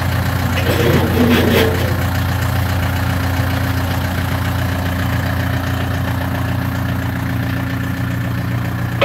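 Steyr tractor's diesel engine idling steadily, with a short clatter about a second in.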